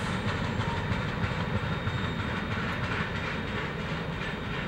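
Freight train's last cars rolling by: a steady noise of steel wheels on the rails, slowly fading as the end of the train moves away.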